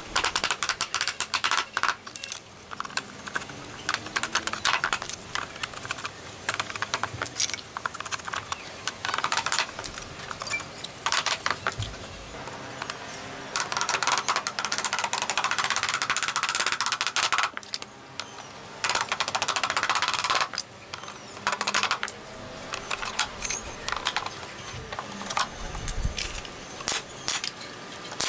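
Rubber mallet tapping pallet-wood boards into place on a wooden box frame, in rapid runs of taps, with a couple of longer stretches of a cordless drill driving screws into the wood.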